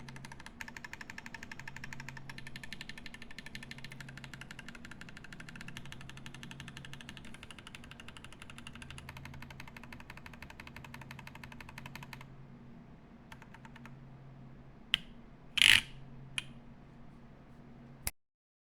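Fast, continuous typing on a Keycult No.2/65 mechanical keyboard with lubed Husky switches, an aluminum plate and GMK keycaps, a dense run of key clacks. About twelve seconds in the typing stops, leaving a few single keystrokes, one of them a much louder clack, before the sound cuts off.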